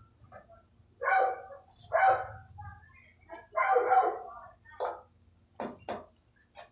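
Dog barking: three short barks about a second apart with a few fainter yips between, then a few sharp knocks near the end.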